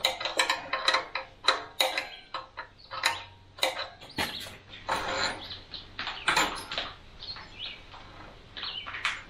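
Scattered light clicks and metallic clinks of a 10 mm wrench being handled and fitted onto the throttle-cable clamp nut of a small tiller engine.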